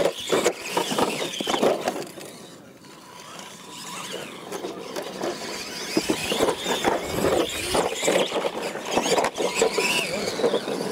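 Electric RC monster trucks racing on a dirt track: high-pitched motor and gear whine with scattered knocks of wheels over dirt and ramps. Loud at first, it dies down about two seconds in, then builds again about six seconds in.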